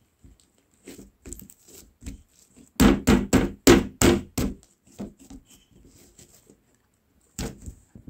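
A quick run of about six loud thumps, a little under half a second apart, midway through, with fainter scattered taps before and after.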